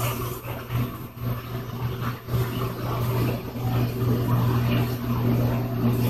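Electrolux LT08E Turbo Agitação top-load washing machine humming steadily as its drum begins the spin cycle, turning slowly through the rinse water and gathering speed gradually.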